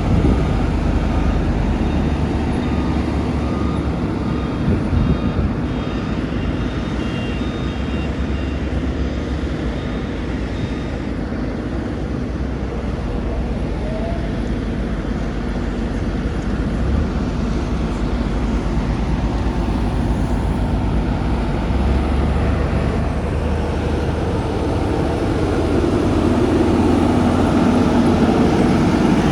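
Road traffic noise, vehicles such as trucks and cars running with a steady low rumble.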